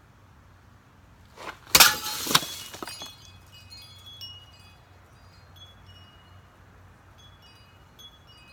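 A sword slash through a plastic water bottle that also hits a bird feeder: a loud crash about two seconds in, then scattered high, chime-like tinkling for several seconds.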